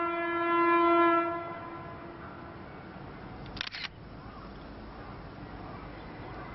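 Train horn sounding one long single-pitched blast that fades out about two seconds in. About three and a half seconds in, a single-lens reflex camera shutter fires with a short double click.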